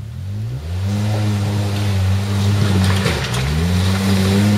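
Polaris RZR S side-by-side's engine revving under load. It climbs in pitch over the first second and holds, then drops briefly about three seconds in before climbing again.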